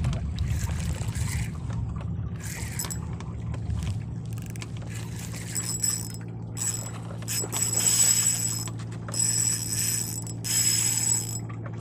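Spinning reel being cranked in four or five short bursts through the second half, its gears giving a high whine each time. A steady low drone runs underneath.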